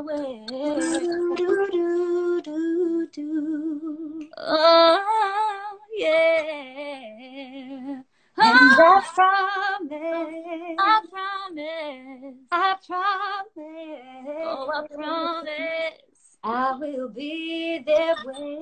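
Two women's voices singing unaccompanied, trading wordless ad-lib runs with vibrato and quick melismatic turns at the close of a duet ballad.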